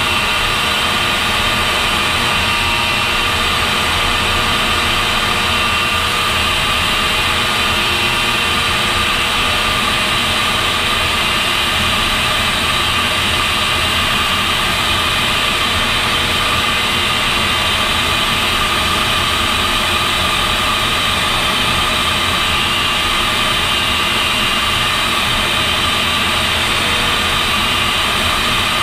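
AV-8B+ Harrier's Pegasus turbofan heard from inside the cockpit: a steady loud roar with a high whine over it, unchanging throughout.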